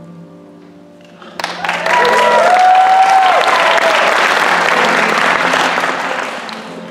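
Audience applause breaking out suddenly about a second and a half in, with whoops and cheers over it, after the last notes of the singing die away; the clapping tapers off near the end.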